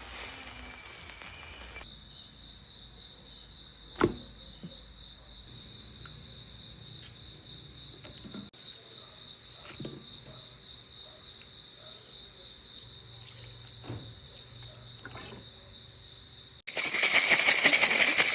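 Insects, likely crickets, trilling steadily at one high pitch, with a single sharp knock about four seconds in. Near the end the sound cuts abruptly to a much louder, noisy hiss.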